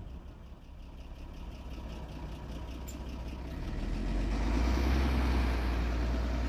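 Engine of a CSVP14 mine-resistant ambush-protected vehicle, a heavy armoured truck with a 336-horsepower engine, running steadily, then growing louder and heavier about four seconds in as it pulls under power at a steep 40% slope.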